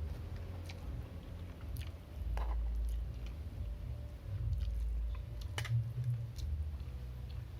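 A person eating and chewing, with scattered small clicks and crunches over a low rumble.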